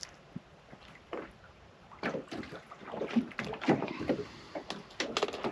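Irregular knocks, taps and rustles of handling aboard a small fishing boat, getting busier about two seconds in.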